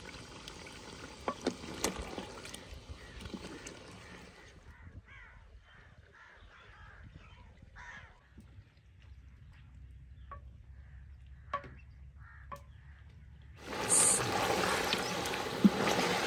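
Chicken pieces frying in hot oil in a clay karahi: a sizzling hiss with the scrape and knock of a spatula stirring. It drops low through the middle and comes back much louder near the end.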